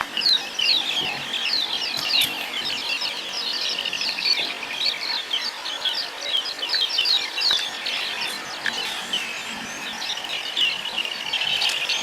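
Birds chirping in a busy chorus: many short, quick, downward-sliding chirps overlapping without pause.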